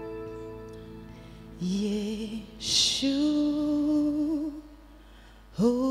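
Slow worship song: a single voice singing long held notes with vibrato over soft sustained chords, a new phrase beginning twice and another note starting just before the end.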